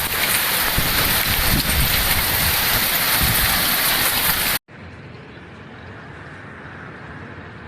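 Heavy downpour pounding down, loud and steady, with low rumbling buffets underneath. About four and a half seconds in it cuts off suddenly to a quieter, steady hiss of rain.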